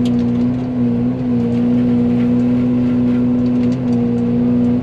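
Yanmar excavator running at high throttle, driving a Fecon forestry mulcher head as it cuts saplings: a steady, even drone with scattered faint ticks.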